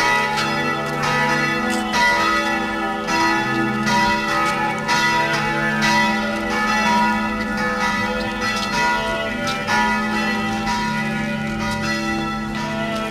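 Church bells pealing: several bells struck in turn about once a second, their tones ringing on and overlapping.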